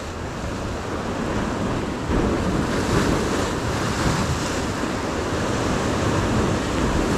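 Ocean surf breaking and washing over shoreline rocks, swelling louder about two seconds in.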